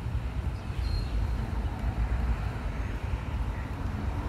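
Steady low outdoor rumble with a fluctuating level, and a faint short high chirp about a second in.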